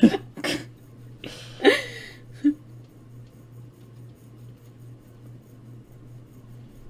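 The last of a couple's laughter: a few short laughs and a breathy laugh in the first two seconds or so. After that only a steady low hum.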